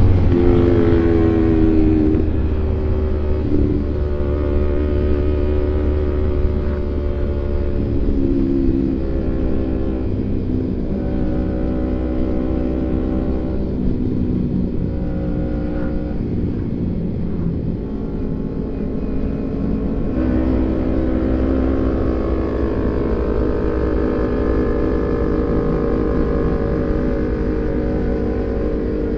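Kawasaki Ninja 250 FI parallel-twin engine running through a CLD Monster racing exhaust while riding, its revs rising and falling several times.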